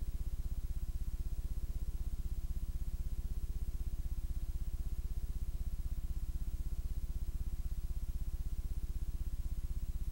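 Steady low electrical hum with a fast, even pulsing buzz, unchanging throughout.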